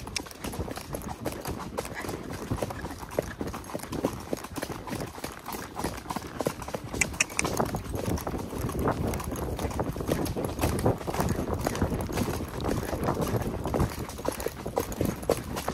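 A ridden horse's hooves striking the trail in a quick, even rhythm, growing a little louder about halfway through.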